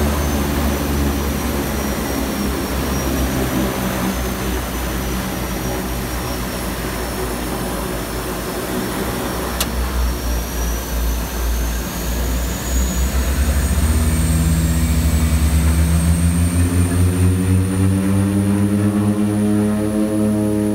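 Twin Otter's two Pratt & Whitney Canada PT6A turboprop engines and propellers heard from inside the cockpit. They run steadily at first, then from about two-thirds through climb in pitch and loudness as power is brought up for take-off. A high turbine whine rises above the propeller drone.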